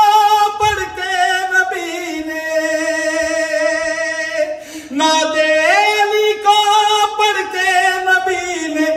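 A man singing long, drawn-out, ornamented phrases in the sung style of a zakir's majlis recitation, with no instruments. One long held phrase, a short breath a little past the middle, then another held phrase.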